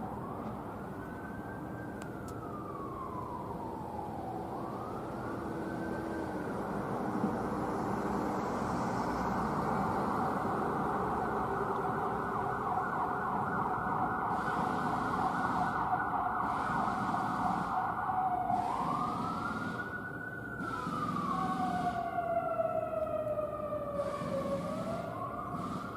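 American Signal Sentry 15V2T dual-tone electromechanical outdoor warning siren sounding. Its pitch rises and falls twice, holds steady near the top for much of the middle, then dips and climbs again, with two tones sliding down together near the end.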